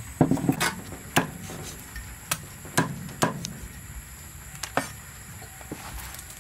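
A knife blade chopping through roast chicken and knocking on a wooden chopping board: a series of sharp, irregular knocks over the first five seconds, several close together at the start.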